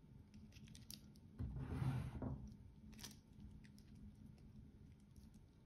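Stainless steel watch bracelet being handled: scattered light clicks of the metal links, with a brief louder rustle about a second and a half in and a sharper click at about three seconds.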